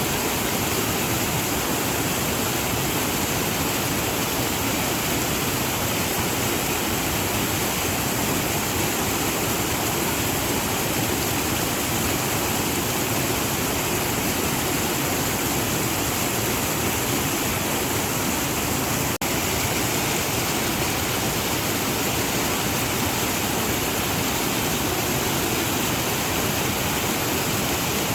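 Waterfall rushing steadily, a dense, even wash of falling water with no change in pitch or rhythm. A brief dropout comes about two-thirds of the way through.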